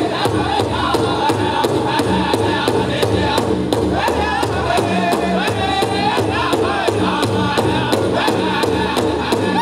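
Powwow drum group singing a chicken dance song: a large drum struck in a steady, fast beat under high-pitched group singing.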